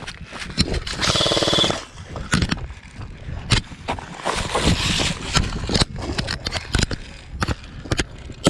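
An airsoft electric gun fires a short full-auto burst about a second in: a rapid run of cycling clicks over a motor whine, lasting under a second. Scattered sharp clicks and knocks fill the rest.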